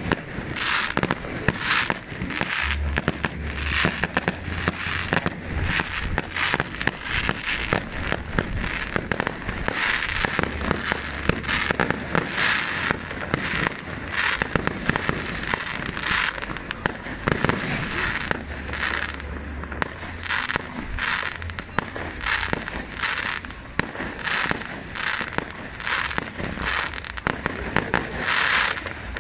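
Fireworks display: a rapid, continuous barrage of bangs and crackling bursts, several a second, going on without a break.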